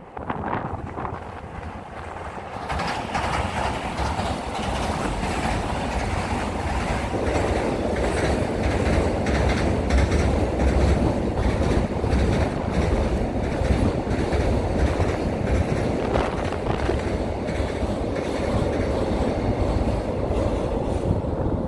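Container freight train passing on a steel girder bridge, its wheels clattering over the rail joints in a steady clickety-clack over a low rumble. The sound builds over the first few seconds and stays loud as the long string of container wagons goes by.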